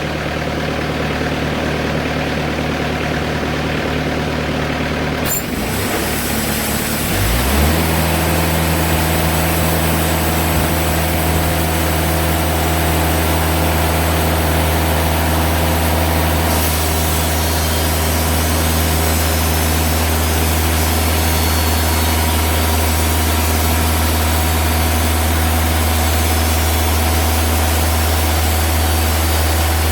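Portable bandsaw sawmill's engine running steadily as the band blade cuts through a red oak log. About six to eight seconds in, the engine note shifts and settles into a deeper, louder steady drone with a hiss over it.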